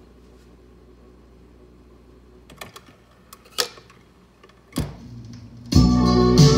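RCA Victor 45 rpm record changer cycling: a faint low hum, then mechanism clicks as the record drops onto the platter about three seconds in, and a louder click near five seconds as the tonearm sets down. A moment of needle surface noise follows before the record's music starts loud near the end.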